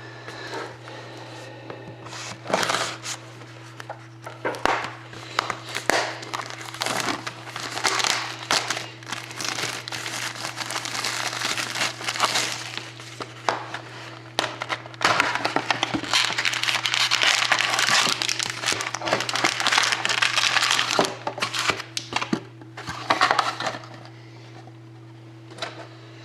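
Plastic shrink wrap crinkling and tearing as it is pulled off a sealed box of hockey cards, in irregular crackly bursts that are densest about fifteen to twenty-one seconds in, over a steady low hum.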